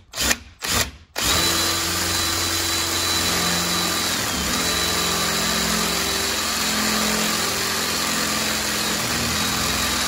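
Power drill boring a hole through the steel edge of an entry door. It starts about a second in and then runs steadily.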